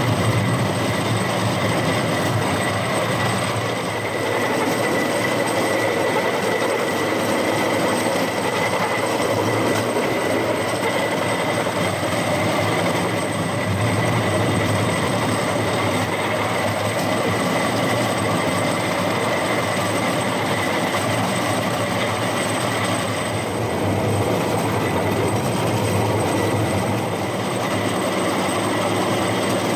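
Rail-mounted golf cart running along a railway track: a steady rumble of its wheels on the rails with a constant high whine over it.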